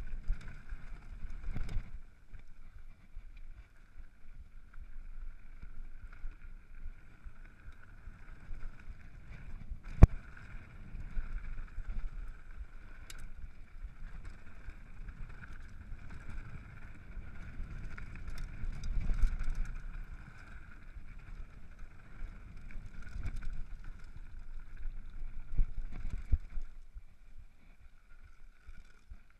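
Mountain bike riding over a rough dirt trail: an uneven rumble and rattle from the tyres and bike over the ground, with wind on the microphone and a sharp knock about ten seconds in.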